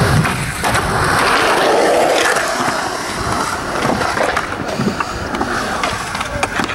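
Skateboard wheels rolling over concrete, with several sharp clacks of the board along the way.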